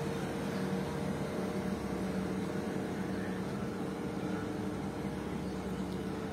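Steady hum of an idling car heard from inside its cabin, a constant drone with an even hiss.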